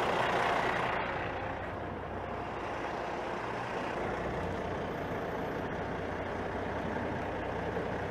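Cummins ISX15 inline-six diesel in an International ProStar idling steadily, settled back down after finishing a full DPF regeneration. A louder rush of noise fills the first second.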